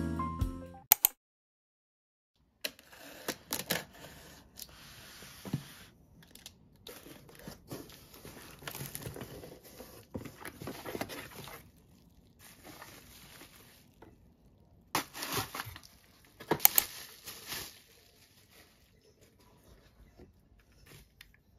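Packaging being handled while a cardboard box is unpacked: bubble wrap crinkling and cardboard rustling in irregular bursts, with a few sharp clicks and tearing sounds.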